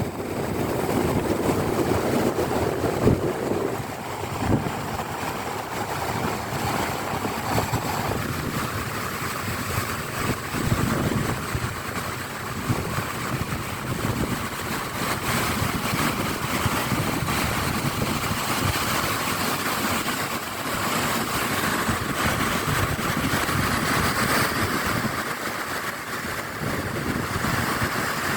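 Sea waves surging and breaking on rocks, with wind buffeting the microphone.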